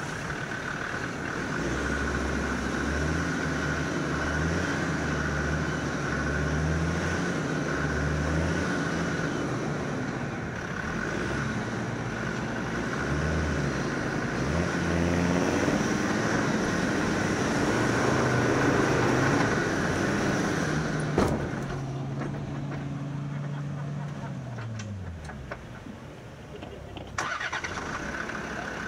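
Land Rover Defender TD5's five-cylinder turbodiesel engine working off-road, its revs rising and falling under load. About 21 seconds in there is one sharp knock. The revs then sink away, and a second sharp knock comes near the end.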